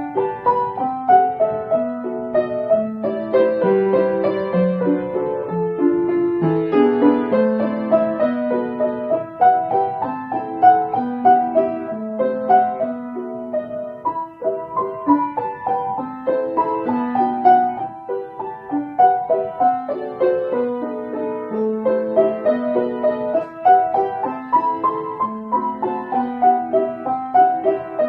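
Solo piano playing a slow, gentle original tune: a melody line of single notes over held lower notes.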